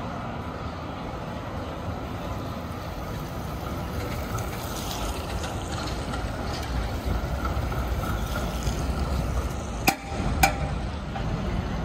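Street traffic on a wet road: a steady hiss of tyres with trams running and a faint held hum. Two sharp clicks about half a second apart near the end.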